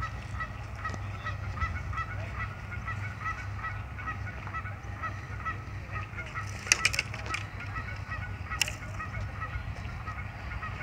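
A flock of geese honking steadily, short calls repeating two or three times a second, over a steady low hum. A few sharp cracks about seven seconds in and one more a second and a half later.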